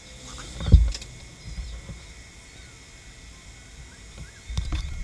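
Handling knocks and taps on a workbench as tweezers and a small part are handled near a TV mainboard: one heavier thump about three-quarters of a second in and a few more knocks near the end, over faint steady high-pitched tones.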